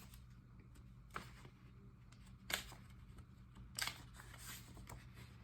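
Loose paper sheets being handled and fitted into a ring planner: three brief, faint clicks and rustles, about a second apart.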